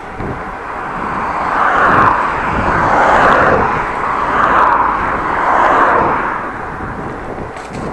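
Road traffic: several vehicles passing close by in quick succession. Their rushing noise swells for about five seconds, then fades.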